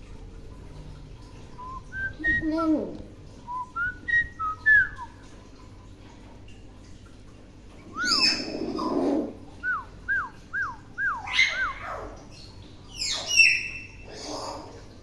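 Hill myna whistling and calling: a few short whistled notes, a louder call about eight seconds in, a run of five quick repeated whistles, then louder calls near the end.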